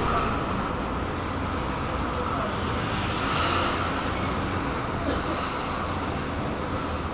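Interior of a tram standing still: a steady low hum with the noise of road traffic passing outside, swelling briefly about halfway through.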